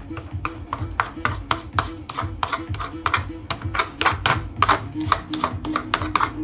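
Metal painting knife scraping and tapping thick acrylic paint across paper in quick short strokes, several a second, heaviest near the end, over background music with a steady beat.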